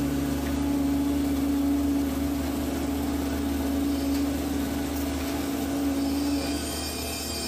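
PC120 hydraulic excavator's diesel engine running under load with a steady hydraulic whine as the bucket is curled to tip out concrete; the whine drops away near the end.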